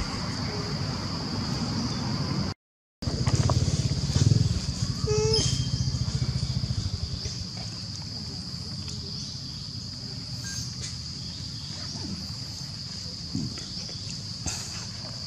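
Insects droning with one steady, high-pitched tone over a low engine-like rumble. The rumble is loudest in the first half and fades after about seven seconds. The sound cuts out briefly just before three seconds.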